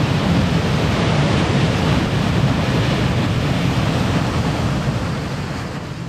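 Waterfall: a steady rush of falling water, easing slightly near the end.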